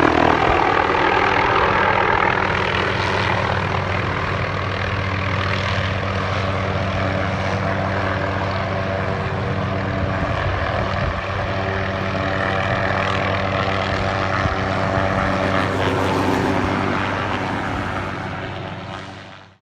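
Hughes helicopter running steadily overhead: a hum of rotor and turbine with a steady drone of even tones, fading out over the last couple of seconds.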